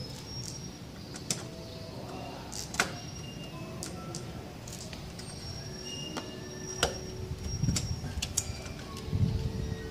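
Scattered light clicks and taps of small metal parts and hand tools being handled as a rivet is fitted through a nut plate on an aluminium aircraft panel, the sharpest clicks about three and seven seconds in.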